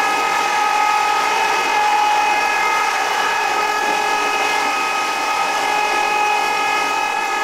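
Electric locomotive shrieking constantly, heard from inside the cab: one steady, high-pitched pitched tone over the rushing noise of the train running at speed as it accelerates.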